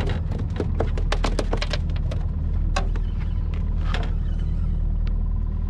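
A spinning reel being cranked against a hooked fish: a quick run of sharp clicks over the first two seconds, then a few scattered ones, over a steady low hum.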